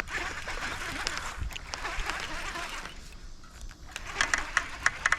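Water splashing as a hooked largemouth bass is fought toward the bank. About four seconds in, a run of sharp, irregular clicks starts.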